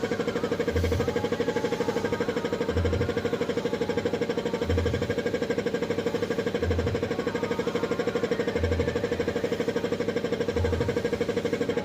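A machine running steadily with a fast, even pulsing, and a low thump about every two seconds.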